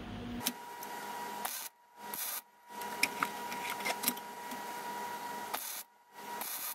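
MIG welder arc crackling and hissing as a bent steel shift rod is welded, in several bursts of a second or three broken by brief pauses.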